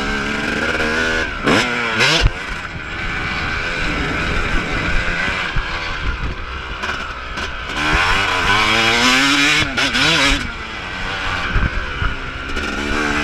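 Yamaha YZ250 two-stroke single-cylinder motocross engine, ridden hard on a dirt track, revving up and dropping back again and again through the gears. A few sharp knocks come through as the bike goes over bumps.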